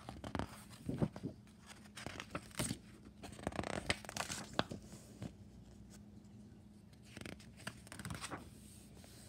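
Paper pages of a large picture book being opened and turned by hand: irregular rustling and flapping brushes of paper, busiest in the first half, with a few more near the end.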